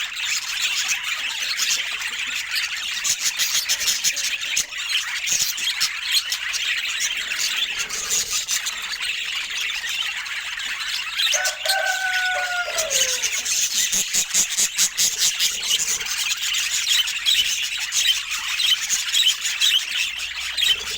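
Budgies chirping and warbling in a fast, dense, high chatter, with a brief lower gliding tone about twelve seconds in.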